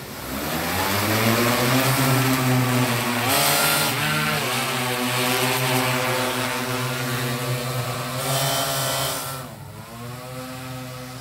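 Propellers of a multirotor crop-spraying drone whirring as it spins up and lifts off, the pitch rising over the first couple of seconds, then a steady hum that shifts in pitch a couple of times as it flies.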